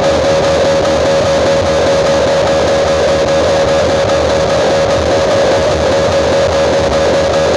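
Loud guitar-led music played through a large outdoor PA sound system, dense and steady in level with a heavy bass.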